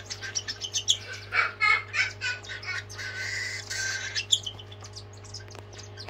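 Young cockatiels chirping and begging while being hand-fed formula from a syringe: a quick run of short chirps, then a steadier raspy begging call about halfway through.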